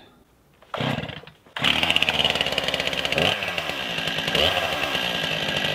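A gas chainsaw starting up. After a short sputter just under a second in, the engine catches about a second and a half in and runs on, its revs rising and falling a couple of times.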